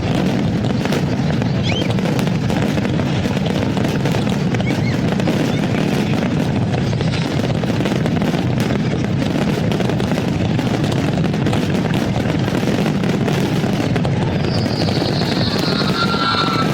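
A fireworks display crackling and popping without a break, dense and steady, with a brief high whistle-like tone near the end.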